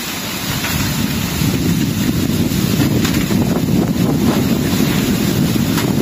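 Strong gusting wind blowing through the trees and buffeting the microphone, growing a little stronger in the first second or two: the onset of a violent, typhoon-like storm.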